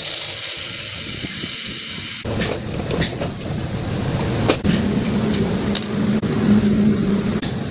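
Electric vibrator machine running: a steady high whine, then from about two seconds in a rough grinding rattle with scattered sharp clicks and knocks. The grinding is the fault the machine is brought in for.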